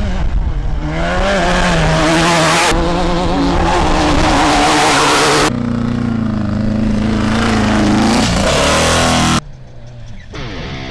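Off-road race vehicle engines running and revving, in short clips that change abruptly about every three seconds, with a quieter stretch near the end.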